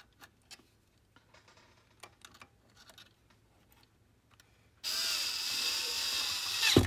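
Cordless drill-driver running for about two seconds near the end, driving a screw through a long nut-driver shaft to fasten a slide projector's solenoid mounting plate, and stopping abruptly with a knock. Before it there are light clicks of tools against metal.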